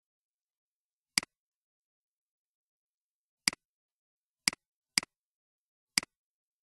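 Five computer mouse clicks, each a sharp press followed at once by a softer release, spaced unevenly about a second or more apart, with dead silence between them.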